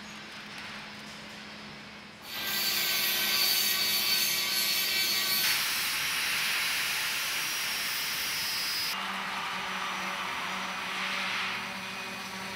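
Angle grinder grinding the edge of a steel plate: a loud grinding hiss with a steady whine, starting suddenly about two seconds in. Over the last few seconds a somewhat quieter power-tool sound takes over.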